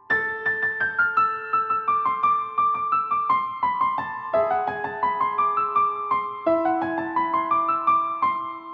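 Background music: a soft piano (electric piano) playing fast repeated arpeggio-like notes over held bass notes.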